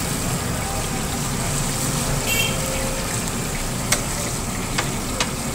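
Chapli kababs shallow-frying in a pool of hot oil on a large flat griddle: a steady sizzle, with a few sharp clicks in the second half.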